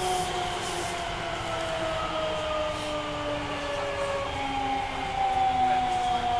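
Osaka Municipal Subway 66 series car's Mitsubishi GTO-thyristor VVVF inverter (Hitachi design) whining in several tones that fall slowly in pitch as the train slows, jumping back up once about four seconds in, over steady rail running noise.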